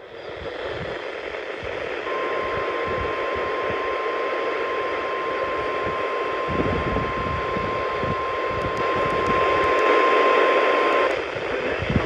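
NOAA Weather Radio 1050 Hz warning alarm tone, one steady tone held for about nine seconds over heavy static hiss from a Midland weather radio's speaker; the tone announces a warning broadcast.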